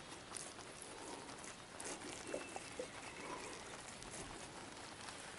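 Faint patter and small splashes of a topwater bass lure being worked across the water surface, with scattered light ticks and a brief faint thin whistle a little after two seconds in.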